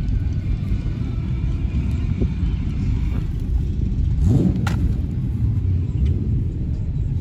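Car engine rumbling as a vehicle drives past, with a brief rise in pitch a little past the middle.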